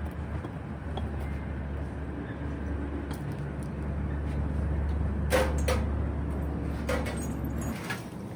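A steady low machine drone with a few sharp metallic clanks of parts or tools, mostly in the second half. The drone cuts off abruptly near the end.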